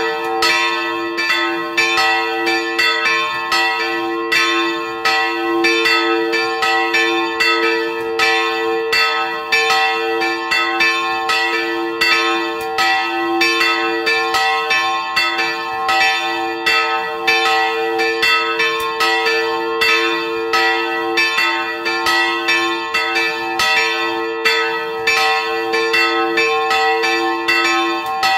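Two bronze church bells, cast by Nuspicher in 1701 and 1714, swinging and ringing together at close range, their strokes overlapping in a continuous, even peal.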